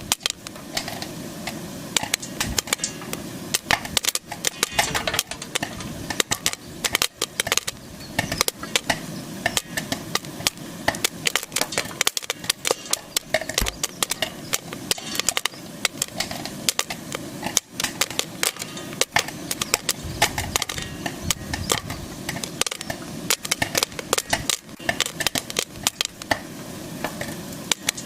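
Popcorn kernels popping in a pan: many sharp, irregular pops in quick succession over a steady sizzling hiss, at a full, busy popping rate.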